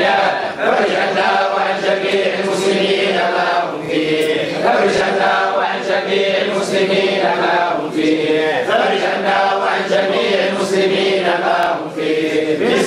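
Men's voices chanting an Arabic supplication (du'a) in long, wavering, melodic phrases, with several voices sounding together.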